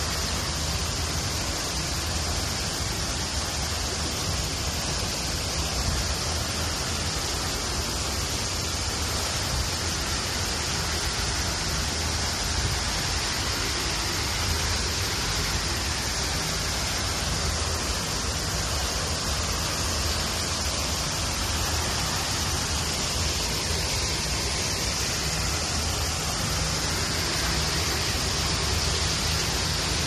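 Steady, unbroken rush of water from a fountain splashing into a pond.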